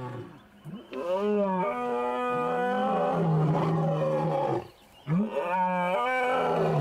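Male lions fighting, giving two long, wavering roaring snarls, the first starting about a second in and the second just after a short break near five seconds.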